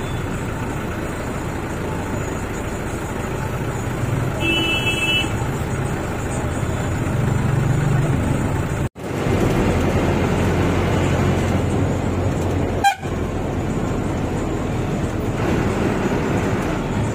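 Van engine and road noise heard from inside the cab in slow town traffic, with one short, high-pitched vehicle horn toot about four and a half seconds in. The sound cuts out for an instant about nine seconds in, and there is a sharp click near thirteen seconds.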